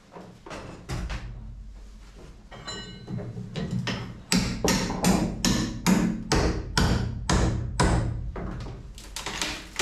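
Hammer blows on an old fiberglass-covered wooden boat stringer being demolished: a few light taps, then from about four seconds in a steady run of hard strikes, about two a second.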